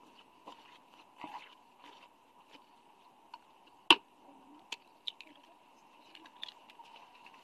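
A metal fork scraping and clicking in a stainless steel mixing bowl of floury mixture, with one sharp clink of the fork against the bowl about four seconds in. A few lighter clicks follow as an egg is cracked and dropped into the bowl.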